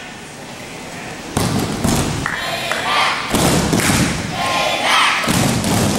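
Wrestlers' bodies and feet thudding and scuffling on a foam wrestling mat during a takedown-and-return drill. A sudden heavy thump comes about a second and a half in, followed by repeated lighter thuds.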